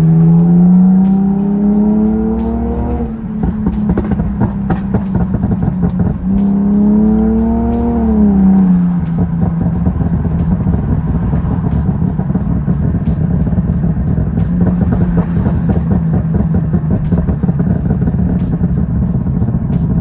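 BMW E46 coupe's straight-six engine accelerating twice, its pitch rising for two or three seconds each time, then settling into a steady drone.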